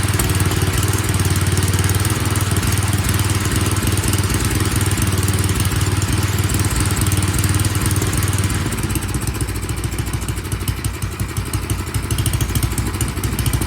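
Craftsman snowblower's small gas engine running smoothly and evenly after its carburetor was cleaned, now sounding healthy. About eight or nine seconds in it eases to a slightly lower, more pulsing speed.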